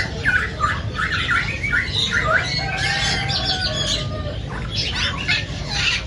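Young African grey parrots calling: a run of rapid short squawks and chirps, with a longer call about halfway through.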